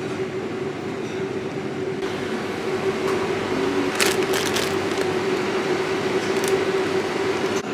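Metal wire shopping trolley rolling across a shop floor: a steady rumble from its wheels and basket, with a constant hum running through it. A few sharp clicks come about four seconds in.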